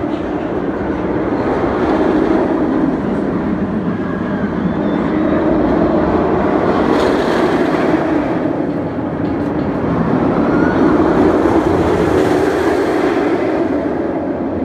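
A Bolliger & Mabillard floorless steel roller coaster train running along its track, a steady rumbling roar that swells and fades, loudest about two seconds in and again near the end.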